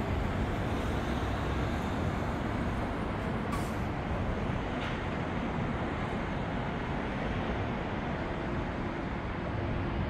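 Distant 1999 Avro RJ100 airliner's four LF507 turbofans running at low power as it rolls along the runway: a steady rumble and hiss with no rise in pitch, and a faint steady hum joining near the end.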